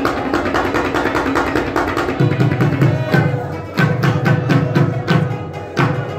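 Harmonium playing sustained reed tones. About two seconds in, tabla joins with a rhythmic pattern of deep bass strokes and sharp higher strikes.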